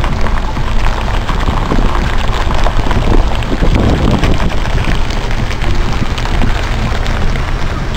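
Scania 164 heavy-haulage tractor unit's V8 engine hauling a loaded multi-axle low-loader slowly round a bend, heard as a steady low rumble under dense crackling noise.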